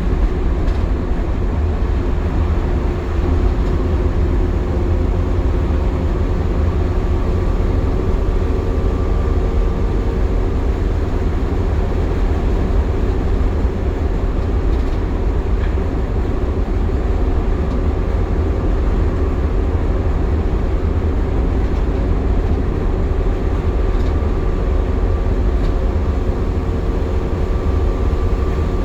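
Optare Solo midibus on the move, heard from inside the saloon: a steady low engine and road rumble with a steady whine above it.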